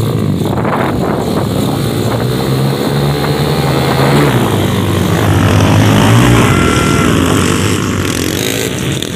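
A pack of small pit bike engines revving together at the starting gate. About four seconds in they launch and accelerate away as one mass of engine noise, loudest around six seconds in.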